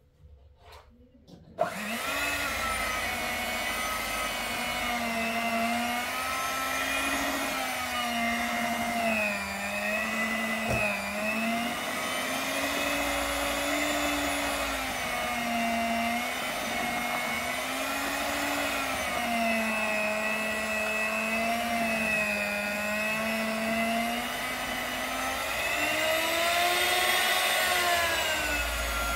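Electric hand mixer switched on about two seconds in, its motor whining steadily as the beaters churn thick cake batter, the pitch wavering up and down with the load.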